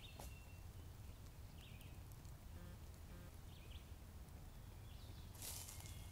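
Faint, scattered bird chirps, with a short rustle of footsteps in dry leaf litter about five and a half seconds in.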